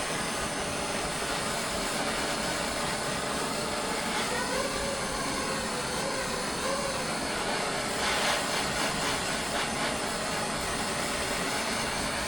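MAP gas torch flame burning with a steady hiss, heating stainless steel exhaust tubing to drive off moisture before TIG welding.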